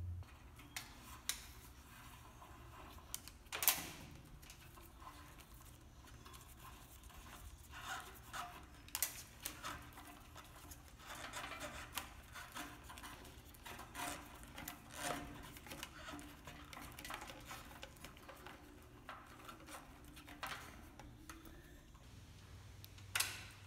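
Faint, scattered clicks, taps and rustles of hands fitting the motorcycle's rear light wiring and parts, with the sharpest click about four seconds in.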